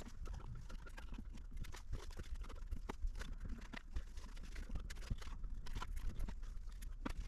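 Molding sand being packed by hand around a pattern: irregular soft taps, pats and scrapes over a low rumble.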